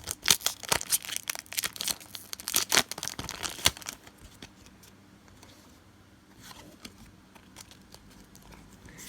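A foil Pokémon booster pack wrapper being torn open and crinkled, a dense crackling that stops about four seconds in and gives way to faint rustles.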